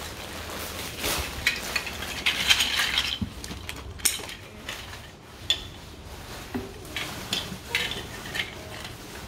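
Plastic LEGO DUPLO bricks clattering and clicking as they are handled and rummaged through. A dense run of rattling comes in the first few seconds, then scattered single clicks.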